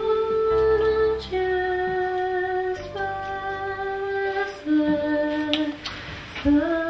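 Music: a slow melody of long, held notes sung by a woman's voice over a soft accompaniment.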